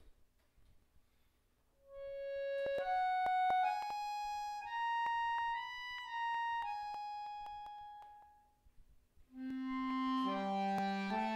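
Bayan (chromatic button accordion) playing solo: after a brief hush, a slow single melody of long held notes climbs and then fades away, and a couple of seconds before the end lower notes and chords come in. Small clicks are heard at the note changes.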